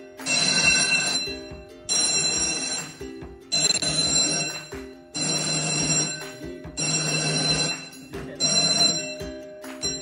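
Electric fire alarm bell ringing in repeated bursts about every one and a half seconds, sounding the alarm after the smoke detector has sensed smoke.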